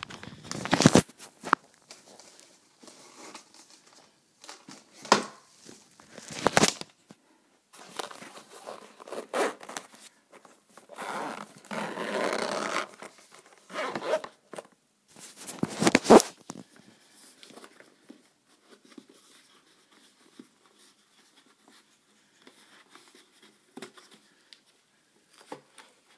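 Zipper of a hard-shell headphone carrying case being pulled open in a series of short rasping runs, with one longer, steadier pull near the middle, followed by quieter handling of the case.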